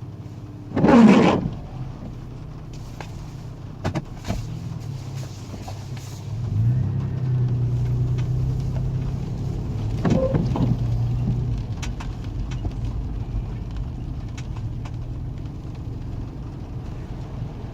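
Car engine and road noise heard from inside a moving car, the engine note rising and then holding steady about six seconds in. A brief loud noise about a second in, and a few light clicks.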